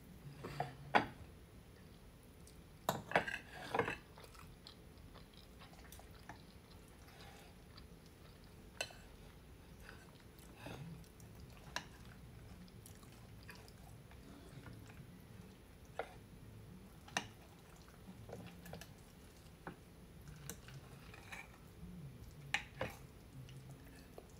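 Chewing of soft lasagna, with a metal fork clicking and scraping against a glass baking dish every few seconds. A cluster of louder clinks comes about three to four seconds in.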